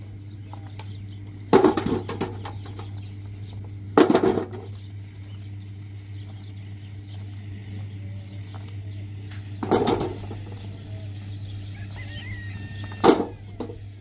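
Stones dropped by hand into a wheelbarrow: four loud clattering knocks a few seconds apart, over a steady low machine hum.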